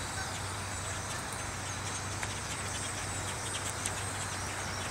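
A large roosting flock of birds chattering all at once: a dense spread of short, high chirps over a steady hiss, which sounds like rain. A steady low hum runs underneath.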